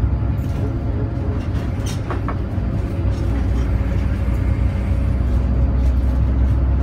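Bus engine and road noise heard from inside the cabin while driving: a steady low rumble, with a couple of brief clicks about two seconds in.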